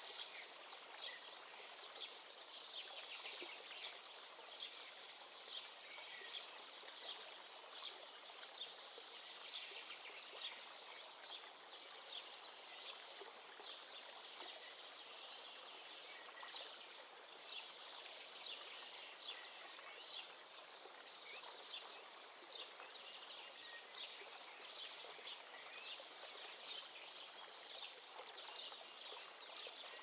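Faint outdoor ambience: many small birds chirping continuously over a steady hiss.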